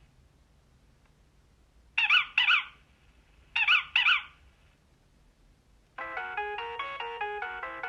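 Alcatel OT 735 mobile phone playing its built-in ringtones: a short chirping double note sounds twice, about two and about three and a half seconds in, then a different electronic ringtone melody starts about six seconds in.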